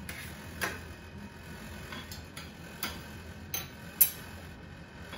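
A metal serving spoon clicking and clinking against a baking tray and a plate as baked stuffed pepper halves are lifted off: about five light, spread-out clinks, the sharpest about four seconds in.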